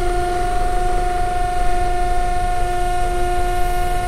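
Cordless drill running at a steady speed with a constant high whine, boring into the concrete parapet to fix a pipe clamp.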